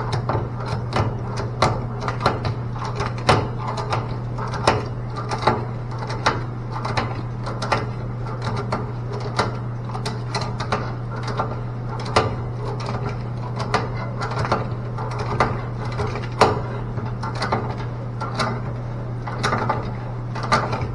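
Irregular clicks, taps and knocks of hand tools and parts being handled while rebuilding a hot water mixing valve, over a steady low hum.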